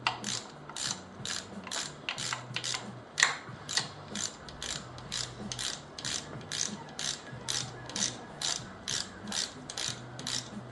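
Hand ratchet wrench clicking steadily, a little over two clicks a second, as it backs off the front timing cover bolts on a Datsun L16 engine.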